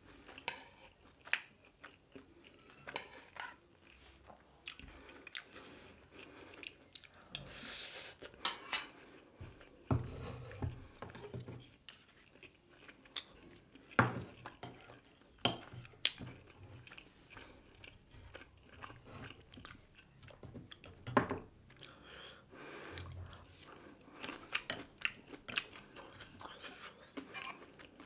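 Close-up eating sounds of grilled pork sekuwa: irregular chewing with wet smacks and sharp crunchy bites, loudest at a few single bites about 14, 16 and 21 seconds in.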